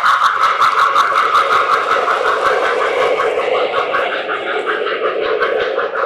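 Lionel O-gauge model train running on track, its wheels clicking in a fast, even rhythm, about seven clicks a second, over a steady motor whine.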